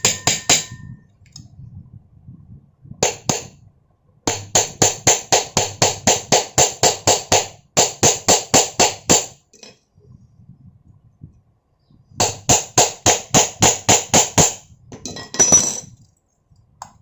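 Light, rapid hammer taps, metal on metal, seating a ceiling fan's bearing cover onto its shaft during reassembly. They come at about four taps a second, in several runs with short pauses between.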